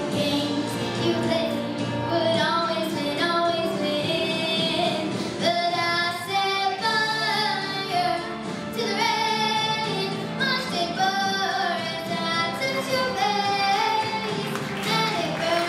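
A young girl singing a melody into a microphone, with held notes, over musical accompaniment.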